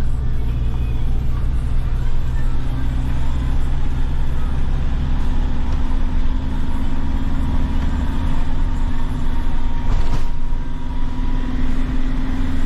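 Steady engine and road noise of a vehicle being driven, heard from inside the cabin: a continuous low drone with a steady rumble.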